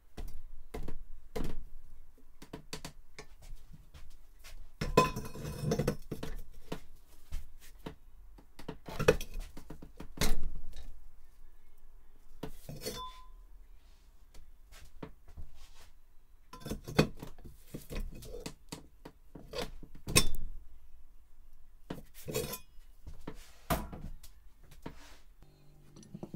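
Irregular metallic clinks and knocks, some ringing briefly, from a Record G-clamp being worked on in a bench vise.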